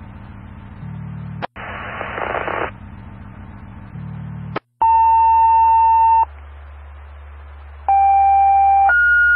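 Fire dispatch radio channel through a scanner: an open-carrier hum with squelch clicks and a short burst of static. Then a steady alert tone of about a second and a half, and near the end a two-tone page, a lower tone followed by a higher one, each about a second long: a tone-out alerting a fire station.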